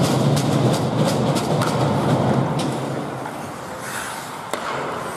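Ice hockey play: skate blades scraping the ice under a dense rumble, with sharp clacks of sticks and puck scattered through. The noise is louder for the first half and then drops.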